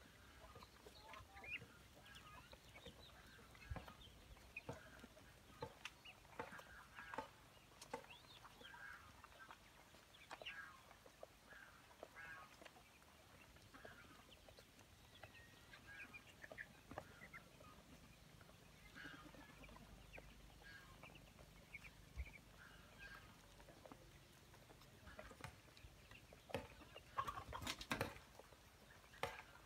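A flock of young ducks peeping and chirping softly, with short calls overlapping as they feed. Near the end there is a louder, busier flurry of calls and scuffling.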